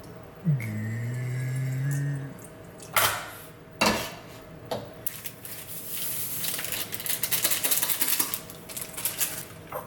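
Metal clanking and clinking. There are two sharp knocks about three and four seconds in, and a run of rapid clattering in the second half. A short low drone sounds about half a second in.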